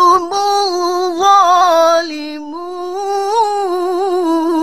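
A woman's solo voice reciting the Quran in melodic tajweed, drawing out the word 'antum' in long wavering held notes. The pitch dips about two seconds in, then climbs back into another long ornamented note.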